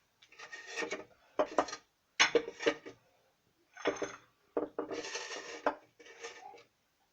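Dishes and kitchen utensils clinking and knocking in short bursts as they are handled and set down on a counter.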